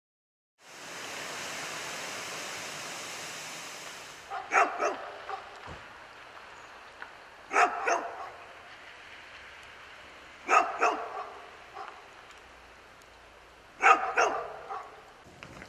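A dog barking in four short bursts of two or three barks each, about three seconds apart. A steady hiss fades out before the first burst.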